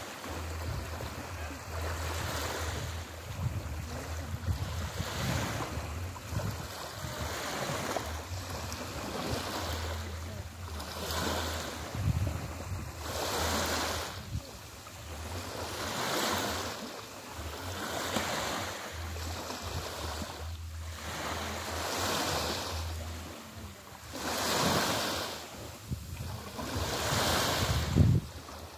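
Small waves lapping and washing up a sandy beach, a soft rush that swells and fades about every two seconds. Wind buffets the microphone with a low rumble at times, mostly in the first half.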